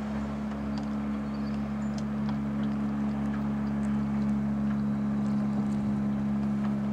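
Honda 8 hp four-stroke outboard motor running steadily at speed, driving a small open boat: an even hum that grows a little louder past the middle as the boat comes closer.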